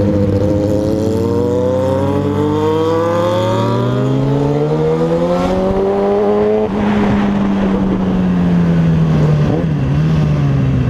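Suzuki Bandit motorcycle's inline-four engine running through an open exhaust pipe with no muffler, loud, its pitch rising steadily under acceleration for about six seconds, then changing abruptly near seven seconds, as at a gear change or throttle lift, and slowly falling after.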